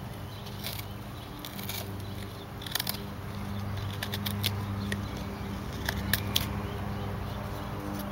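Knife blade shaving wild cherry wood: a string of short scraping cuts at irregular intervals. Under them runs the steady drone of a lawn mower engine, swelling a little in the middle.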